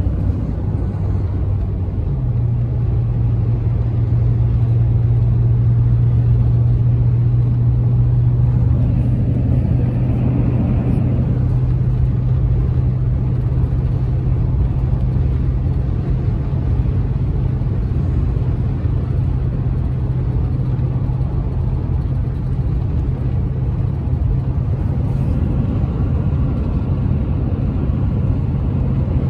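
Cabin noise of a car driving at highway speed: a steady low drone from engine and tyres over a rushing road noise. The drone steps up slightly in pitch about two seconds in.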